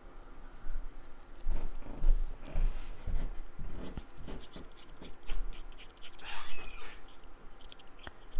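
Cut cardstock pieces being handled and pressed on a work table: irregular rustles, scrapes and light taps.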